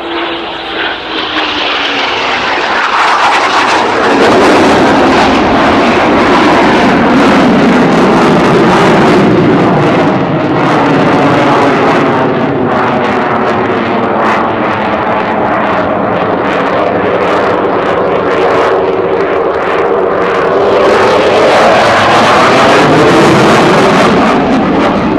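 Eurofighter Typhoon jet fighter flying a low display pass, the noise of its two EJ200 turbofans very loud throughout. It builds over the first few seconds with a falling whine as it passes, eases slightly midway, and swells again near the end with both afterburners lit.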